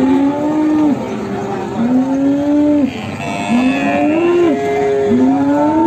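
Cattle mooing over and over, a drawn-out call about every two seconds, with more than one animal calling at once part of the time.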